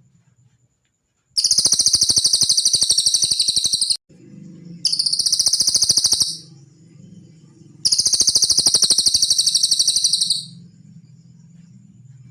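Cililin songbird giving three high, fast trills of rapidly repeated notes, each two to three seconds long, over a faint low hum.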